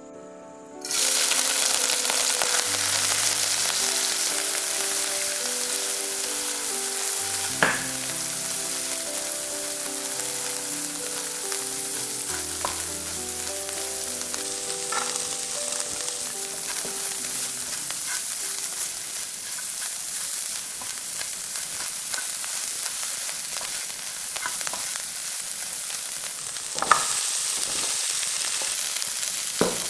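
Minced dried shrimp sizzling in hot oil in a nonstick pan, starting suddenly about a second in as they hit the oil, while a silicone spatula stirs them with a few light taps. Near the end the sizzle grows louder as choy sum stalks and leaves are added.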